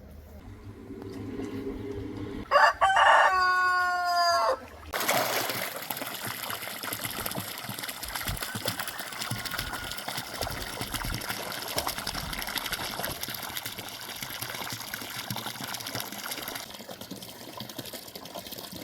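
A rooster crows once, loud, starting about two and a half seconds in and lasting about two seconds. After it comes a steady rush of running water.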